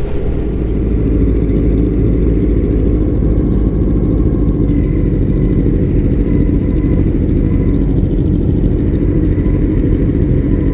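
Yamaha R1 sport bike's 1000cc inline-four engine running at a steady cruise, with a dense low rush of wind noise under it.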